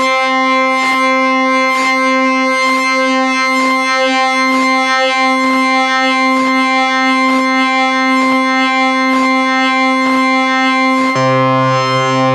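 Software synthesizer patch holding one sustained note rich in overtones, with an even click-like pulse a little under once a second. Near the end the sound switches to a different patch with a lower note added underneath.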